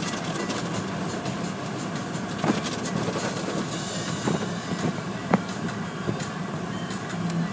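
Automatic car wash heard from inside the car: cloth wash strips swishing and slapping over the windshield and roof amid a steady hiss of spraying water and the hum of the machinery. A few sharp knocks stand out, one about two and a half seconds in and another about five seconds in.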